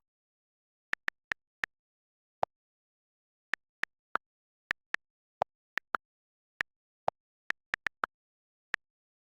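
Hailstones striking a hard surface: sharp, irregular ticks, about two a second. A few louder, duller knocks fall among them.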